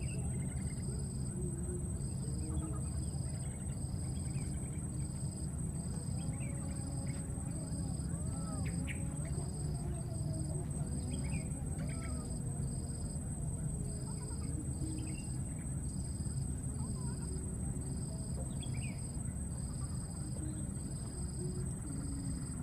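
Insects calling: a cricket-like chirp repeats about once a second over a steady high-pitched drone, with a low steady rumble beneath and faint short chirps now and then.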